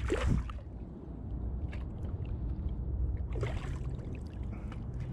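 Water splashing twice as a hooked largemouth bass thrashes at the surface beside the kayak, once at the start and again about three and a half seconds in, over a steady low rumble of moving water.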